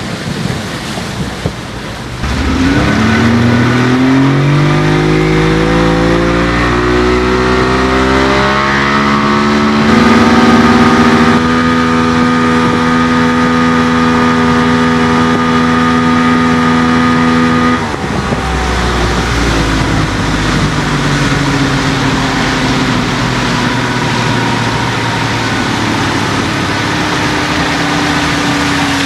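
Yamaha 70 hp outboard motor running a speedboat at speed. About two seconds in, the engine note climbs steadily in pitch as the boat accelerates, then holds a steady high note. Near two-thirds of the way through it drops back under the rush of wind and water, with a fainter engine tone slowly rising.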